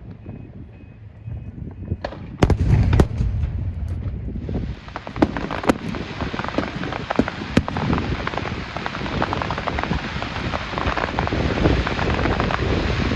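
Fireworks going off: a few loud bangs about two and a half seconds in, then from about four and a half seconds dense, continuous crackling full of sharp pops.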